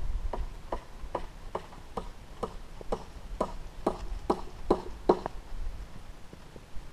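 Hoofbeats of a half-draft horse walking, a steady beat of about two to three steps a second that grows louder as it passes close by and then fades out.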